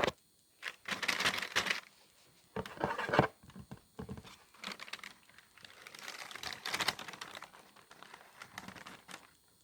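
Packaging crinkling and rustling as it is handled and opened, in irregular bursts with a few sharp clicks.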